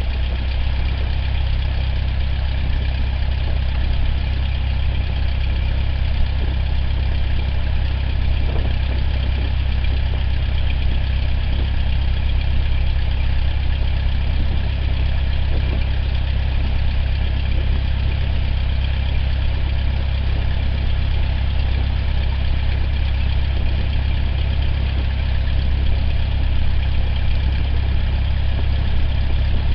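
Cessna 172's piston engine and propeller running steadily at low power while the plane taxis, heard from inside the cabin as an unbroken low drone.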